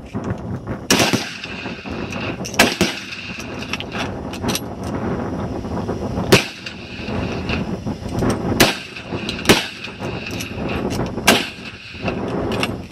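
Rifle shots on a firing line at irregular intervals: about six loud cracks, some louder than others, with fainter shots in between.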